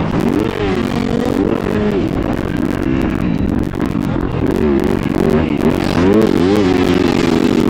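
Motocross bike engine revving hard and easing off again and again, its pitch rising and falling as the rider works the throttle and shifts through turns and over jumps.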